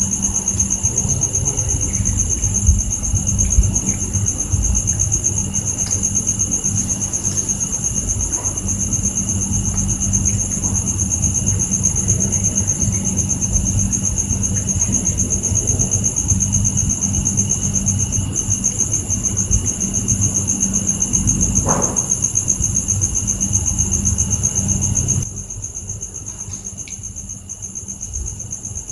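Steady, high-pitched chorus of crickets trilling without a break. Under it runs a low rumble that drops away abruptly near the end.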